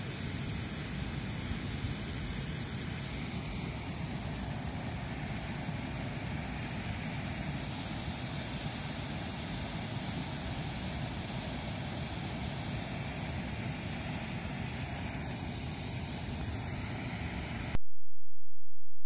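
Turbulent water rushing out of a channel under a footbridge, a steady rush with a low rumble beneath it. It cuts off suddenly shortly before the end.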